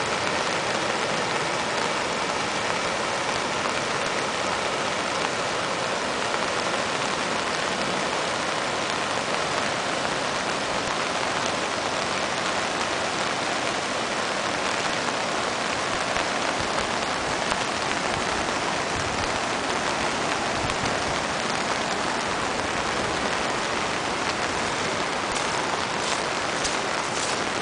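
Steady rushing hiss of a flooded creek in spate, mixed with heavy rain falling, with a few sharp ticks near the end.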